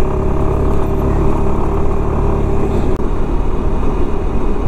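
Suzuki Burgman 400 maxi-scooter riding along: its single-cylinder engine drones steadily under way, mixed with the rush of wind on the rider's microphone. A faint steady tone in the drone fades out about halfway through.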